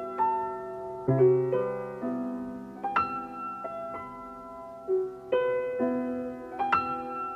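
Slow piano chords, struck every second or so and left to ring out, with no drums or beat.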